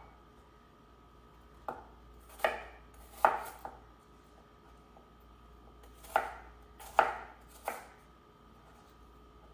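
Kitchen knife chopping a peeled apple into chunks on a wooden cutting board: about seven sharp knocks of the blade on the board, four then three, with a pause of a couple of seconds between.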